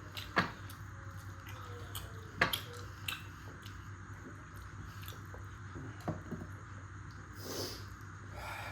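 Scattered wet smacking and clicking sounds of eating, mouth and fingers at the end of a meal, with about four sharp clicks spread through, over a steady low hum.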